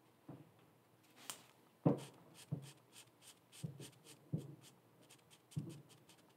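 Marker pen colouring in small circles on a paper tracker card: faint, quick scratchy strokes on the paper with several soft taps as the tip comes down.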